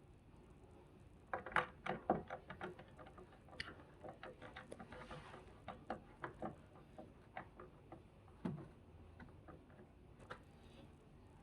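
Irregular small clicks and taps of a screwdriver and screws working a caster wheel's mounting plate onto a portable air conditioner's plastic base, densest early on, with a duller knock about eight seconds in.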